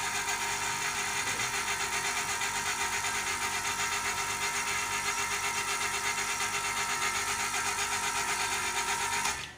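Converted 1 PK household air-conditioner compressor running steadily as it pumps air into a tank. It cuts off suddenly near the end, as the tank reaches the pressure set on its automatic pressure switch.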